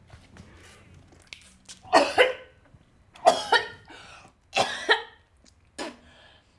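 A woman retching and gagging: four heaves about a second apart, the first three each in two quick pulses.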